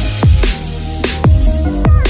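Electronic dance music with a deep, pitch-dropping kick drum about twice a second under sustained synth notes.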